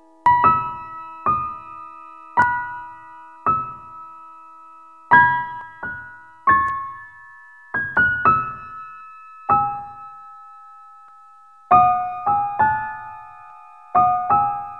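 Slow background music: a sparse melody of single struck piano-like keyboard notes, each ringing out and fading, roughly one a second with some quick pairs.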